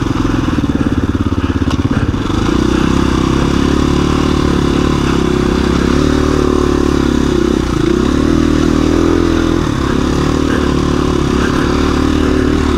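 KTM 350 EXC-F dirt bike's single-cylinder four-stroke engine running at a fairly steady trail pace. The revs dip briefly a couple of times in the second half.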